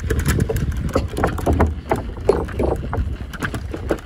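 Bicycle wheels rolling over the loose wooden slats of a toll-bridge deck, the slats knocking and clattering in a quick, irregular rattle.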